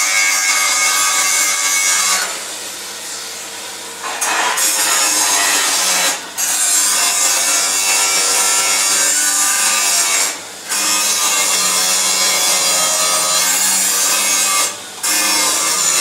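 Loud continuous rasping of metal being cut or abraded in a steel workshop, with short breaks about every four seconds.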